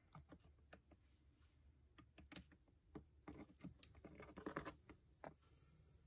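Faint, irregular clicks and taps of a cockatiel's beak against a ceramic food dish, with a quick cluster of them about four and a half seconds in.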